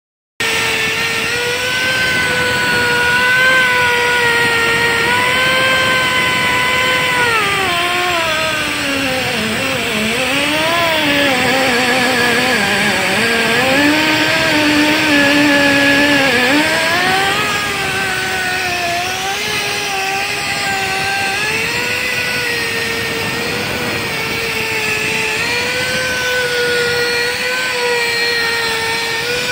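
The motor of a portable on-site crankpin machining rig, running as a steady whine. Its pitch sags and wavers for several seconds in the middle as the motor slows, then climbs back to its earlier speed.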